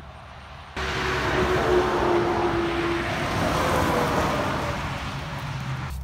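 A road vehicle passing by: a steady rush of tyre and engine noise with a faint tone that slowly falls in pitch, easing off near the end.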